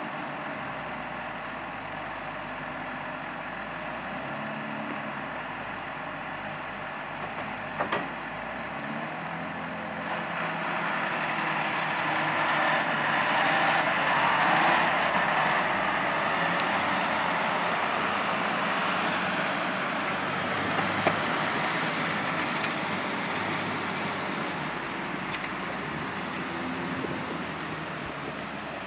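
Farm tractor engine running steadily, growing louder about halfway through and then easing off again. There is a short knock about eight seconds in and a few sharp clicks later on.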